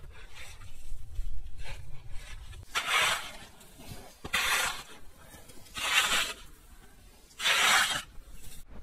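A small hand shovel digging into deep snow and tossing it aside: a few light scrapes, then four strong, rough scoops, about one every second and a half.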